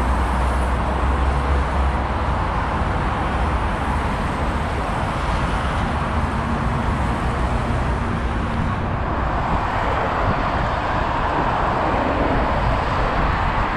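Steady road traffic noise of cars passing on a busy avenue, with a deep rumble in the first couple of seconds and a passing vehicle swelling up about ten seconds in.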